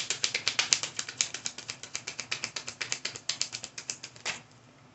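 Tarot cards being shuffled by hand: a fast, even run of papery card clicks, about ten a second, that stops about four seconds in.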